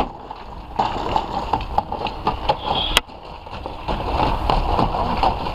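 Irregular knocks, clicks and rustling from rescue crews working on a car body and cabin, with one sharp snap about three seconds in.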